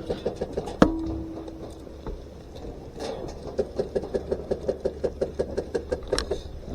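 Airsoft gunfire: a sharp ringing clack about a second in, like a BB striking metal, then a run of rapid shots at about six a second for a few seconds.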